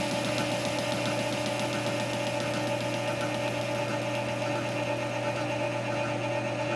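Metal lathe running with a steady hum and whine while a high-speed steel boring bar on slow power feed cuts the bore of a drive sprocket. A rapid, even ticking runs through it from the interrupted cut, as the tool crosses the keyway on every turn.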